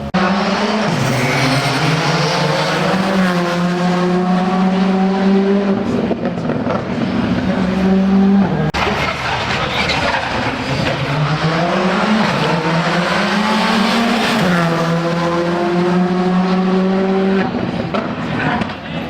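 Rally car engine driven hard on a closed stage, its pitch climbing under acceleration and dropping back several times, then holding high for a few seconds near the end.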